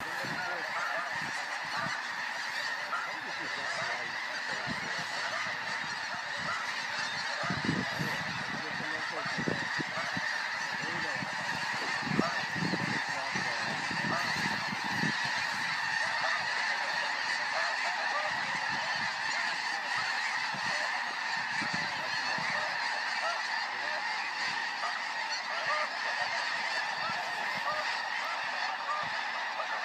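A huge flock of snow geese calling overhead: a dense, continuous din of countless overlapping honks, steady throughout.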